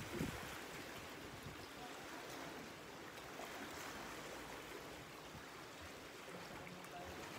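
Small lake waves lapping and washing against shoreline rocks, a faint, steady wash of water.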